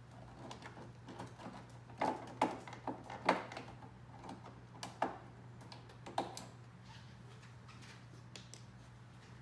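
Sharp plastic clicks and knocks, about five of them in the first six and a half seconds, as the inner trim cover of a Toyota Land Cruiser 80 series upper tailgate is pulled down off its push clips. A steady low hum runs underneath.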